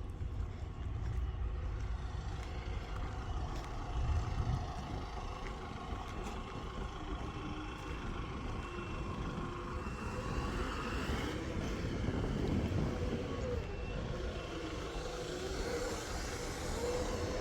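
A machine's engine running steadily with a low rumble; faint wavering whining tones join in from about halfway.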